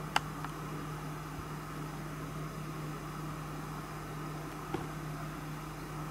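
Steady low hum and hiss of room background noise, with a sharp click just after the start and a fainter click near the end.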